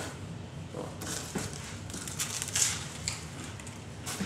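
A few light taps and knocks, irregularly spaced, from things being handled on a kitchen counter.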